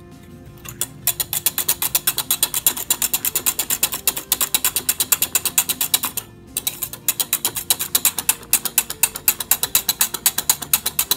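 Wire balloon whisk beating an egg-and-milk custard mixture in a stainless-steel saucepan: rapid, even clicking of the wires against the metal pan, with a short break about six seconds in.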